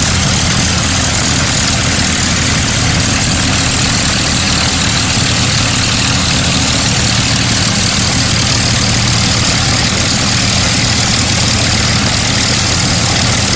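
The two Rolls-Royce Merlin V12 piston engines of a de Havilland Mosquito running steadily at idle with their propellers turning.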